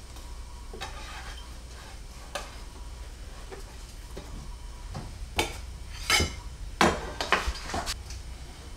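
A few sharp clinks and scrapes of kitchenware, mostly in the second half, over a low steady hum.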